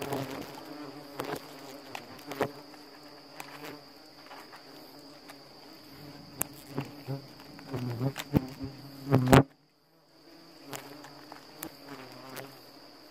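Yellow-legged hornets buzzing around their opened nest, the buzz swelling loudest shortly before the sound briefly cuts out about two-thirds through. A steady high insect whine runs underneath, and sharp clicks from pruning shears snipping at the nest.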